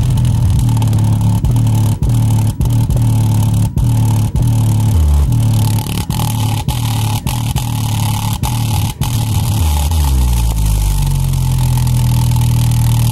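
Home subwoofer playing deep bass notes very loud. The notes change pitch in steps every second or so, with a harsh distorted hiss riding over the bass.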